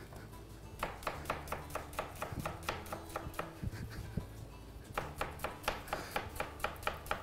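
Knife chopping onion on a cutting board: quick, even strokes, about five a second, in two runs with a pause of about a second and a half in the middle.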